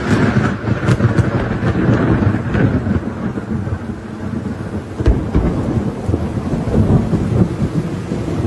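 Thunder rumbling continuously through rain during a thunderstorm, with a sharp crack about five seconds in.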